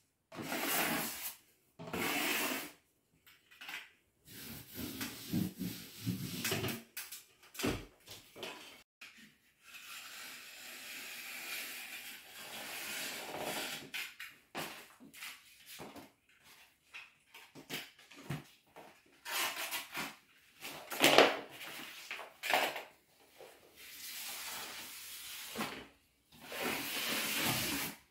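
A sponge rubbed over freshly hung wallpaper on a wall in irregular strokes, some louder than others, wiping the strip down and pressing it flat.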